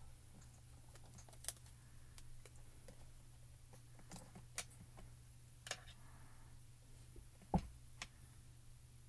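Faint, scattered light clicks and taps of hands and fingernails pressing small paper masks into place on card stock, with one louder knock about three quarters of the way through.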